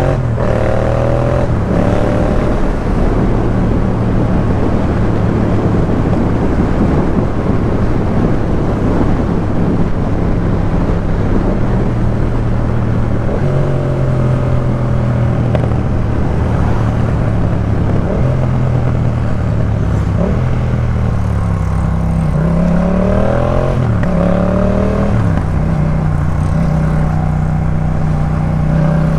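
Yamaha MT-07's parallel-twin engine running through a Jeskap K4 full aftermarket exhaust. The engine note holds steady for long stretches, then dips and climbs again several times about two-thirds of the way through as the revs fall and rise.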